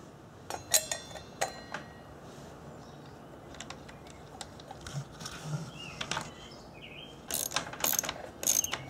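Metal clicks and clinks as a 7-1/4-inch, 40-tooth blade is seated on a cordless miter saw's arbor and the washer and bolt are fitted back on. A short run of clicks comes about a second in, then a quieter stretch, then a busier cluster of clicks near the end.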